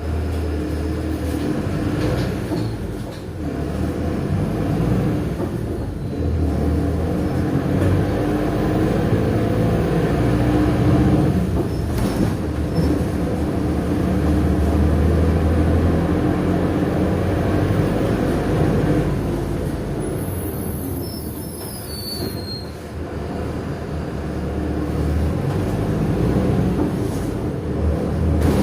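Mercedes-Benz OF-1619L bus heard from the rear of the passenger cabin while under way: its diesel engine runs with a low hum, its pitch rising and falling with acceleration and gear changes, over road rumble. A brief high-pitched squeal comes about three-quarters of the way through.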